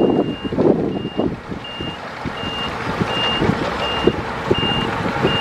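Heavy machine's reversing alarm beeping steadily, one high beep about every three quarters of a second, over a low engine rumble with irregular knocks.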